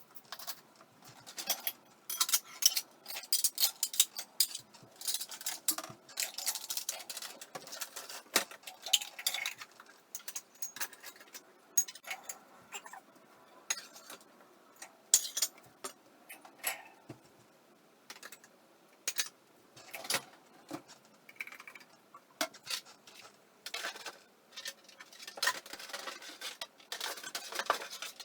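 Dishes and cutlery clattering and clinking as they are handled, in quick, irregular knocks and jingles.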